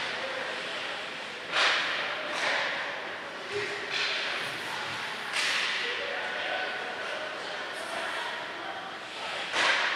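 Ice hockey play in an echoing rink: a steady scraping hiss of skates on ice, broken by about five sharp cracks of sticks and puck, the loudest about a second and a half in and just before the end, with players shouting in the background.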